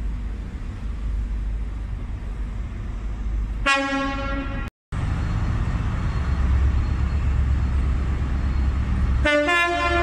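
Class 43 HST power car horn: a single-tone blast of about a second, roughly four seconds in, over the steady low rumble of the train's diesel engine. Near the end the two-tone horn sounds, a lower note followed by a higher one.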